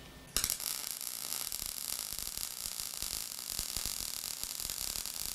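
MIG welding arc on mild steel, a steady crackling hiss that starts about a third of a second in as a steel clip is welded onto the frame.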